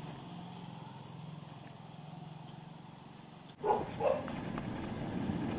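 A low, steady engine hum, then, after a cut, a dog barks twice in quick succession over road noise from the moving bicycle.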